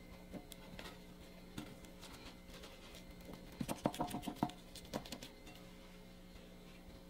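Faint kitchen handling noises: scattered light taps and clicks, with a quick flurry of sharper clicks about three and a half seconds in, over a low steady hum.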